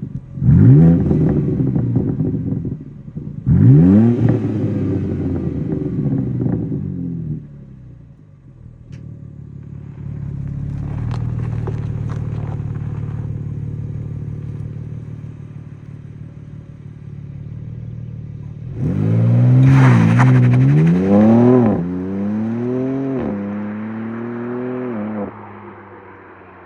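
BMW M2 (G87) with its stock exhaust, the twin-turbo inline-six revved in two sharp blips about half a second and three and a half seconds in, each rising fast and falling away. It then runs at a lower, steadier drone before revving hard again about nineteen seconds in, the pitch rising and falling several times, and dies down near the end.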